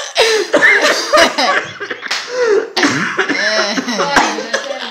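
Coughing and laughter mixed with wordless voices.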